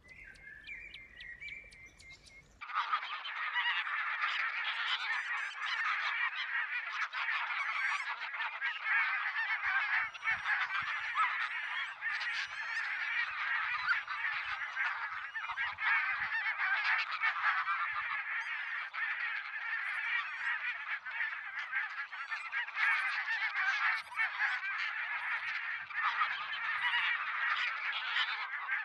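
A large flock of barnacle geese calling together: a dense, continuous chatter of many overlapping yapping calls that starts abruptly a couple of seconds in.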